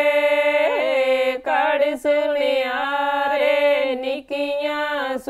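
A woman singing a Punjabi folk song unaccompanied, drawing out long held notes with small turns of pitch, broken a few times by short pauses for breath.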